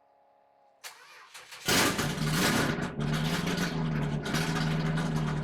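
Toyota 1UZ V8 engine in a Subaru Justy cranking on the starter and catching about a second and a half in, then idling steadily.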